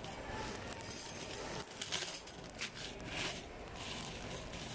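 Small aluminium jalousie fittings clinking against one another in several separate clinks as they are handled and bagged, with a clear plastic bag crinkling.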